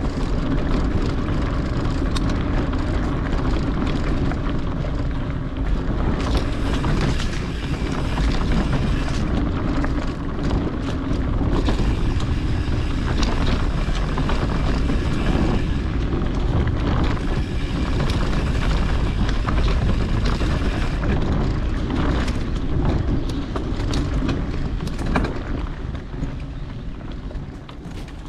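Mountain bike rolling along dirt singletrack: a steady rush of wind on the microphone over tyre noise, with frequent clicks and rattles from the bike over bumps. It eases somewhat near the end.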